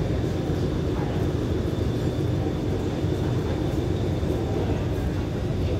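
Diesel engine of a standing passenger train running steadily at idle, a constant low rumble.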